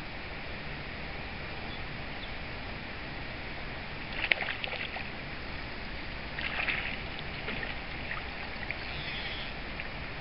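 A hooked trout splashing at the surface as it is played into a landing net, two short bursts of splashing near the middle, the first the louder. The steady wash of the river runs underneath.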